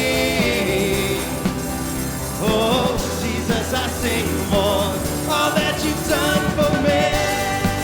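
Live worship band music with no lyrics sung: a steady low bass under sustained held chords, with a melody line that wavers in pitch through the middle.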